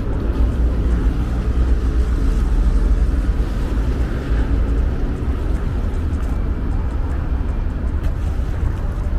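Steady outdoor street noise: a low rumble of wind buffeting a small camera's microphone, with city traffic beneath it.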